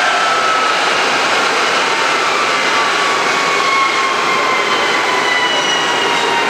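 Frontier Airlines Airbus A320neo's jet engines running with a loud, steady rush. Several whining tones slowly fall in pitch as the engines wind down at the gate.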